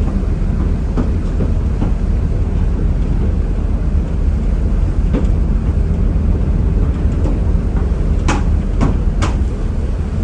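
Steady low rumble on board a ferry coming in to berth, with three sharp clicks close together near the end.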